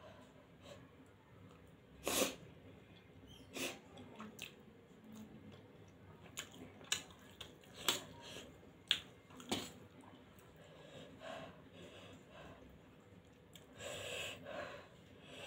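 Close-up eating sounds: chewing and slurping spicy instant noodles, with sharp clinks of a steel fork against a steel plate at irregular intervals. A short loud burst about two seconds in, and a softer slurping stretch near the end.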